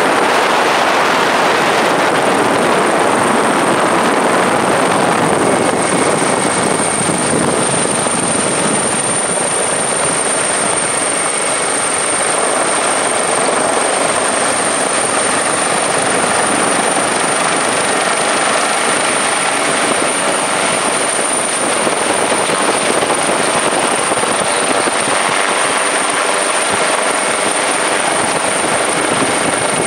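Helicopter heard from on board: a steady, dense rushing noise with a high, steady whine running through it.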